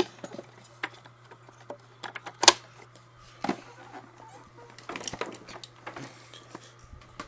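Scattered clicks and knocks of vacuum cleaner parts being handled and fitted back together during reassembly, the sharpest about two and a half and three and a half seconds in, over a low steady hum.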